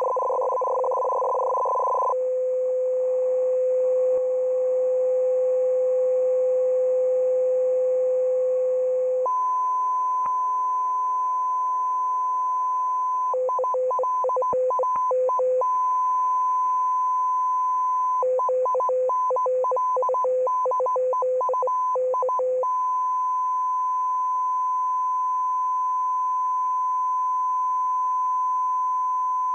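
Russian M42b shortwave signal received as audio tones: it opens with fast warbling between a low tone and a tone an octave higher, holds the low tone steadily, then moves to the higher tone about nine seconds in. The higher tone is broken twice by bursts of rapid keying back and forth between the two tones.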